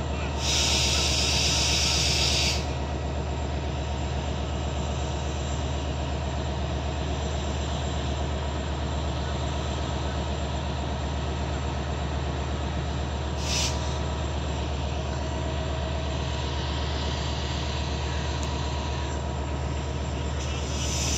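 Diesel multiple unit approaching slowly along the track, its engine a steady low drone throughout. A loud hiss lasts about two seconds near the start, and a brief one comes about halfway through.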